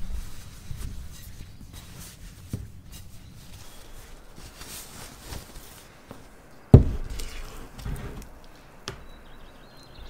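Kitchen handling sounds: a cloth towel rustling as it is laid over a bowl, then a wooden bowl set down on a wooden table with one sharp, loud knock about two-thirds of the way through. Softer handling sounds follow.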